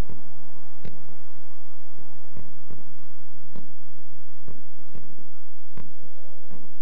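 Distant aerial fireworks shells bursting: a string of sharp bangs, about nine, at uneven intervals.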